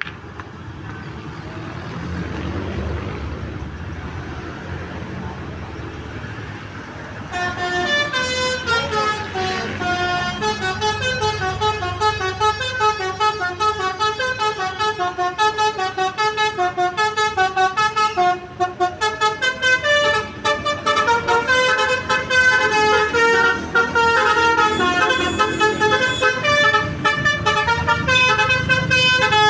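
A Basuri V3 telolet multi-tone horn playing a quick melody of short, changing notes. It starts about seven seconds in, after a low engine rumble, and breaks off briefly partway through.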